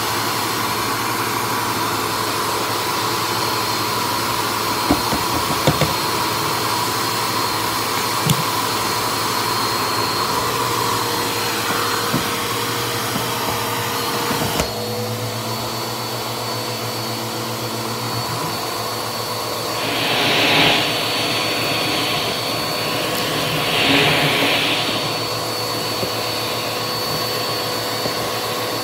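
Bissell bagless vacuum cleaner running steadily, a motor whine over airflow hiss. Its tone shifts abruptly about halfway through, and there are two swells of rushing air later on.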